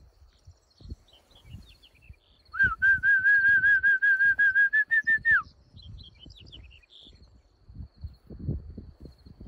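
A man's loud warbling whistle, about three seconds long, rising at the start and sliding down at the end: a call to a dog that is lagging behind. Footsteps and faint bird chirps around it.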